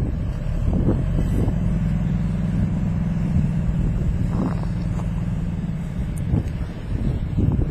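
Heavy engine running at a steady speed, with wind buffeting the microphone now and then.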